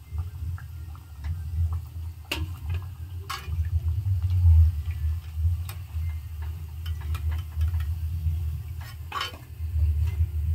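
Thekua deep-frying in hot oil in a steel kadai, with small scattered sizzling crackles, while a slotted steel spoon scrapes and knocks against the pan a few times, about two, three and nine seconds in, as the fried pieces are lifted out. A steady low hum runs underneath.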